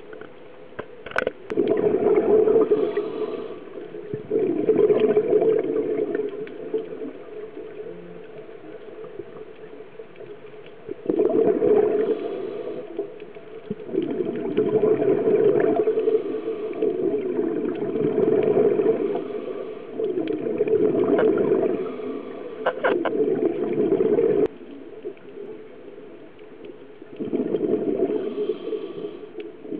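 Underwater bubble noise from a scuba diver's regulator: loud bursts of gurgling exhaled bubbles lasting a second or two each, repeating every few seconds with quieter gaps between them.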